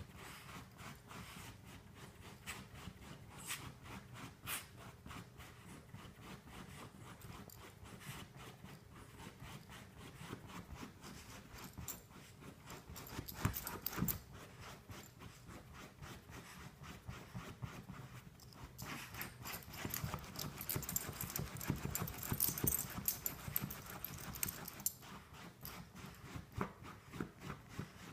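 A small Havanese dog scratching and digging at a fabric couch cushion with its front paws, a rapid train of scratchy strokes in bouts, busiest for several seconds in the second half. This is the dog's nesting scratch to get comfortable before lying down.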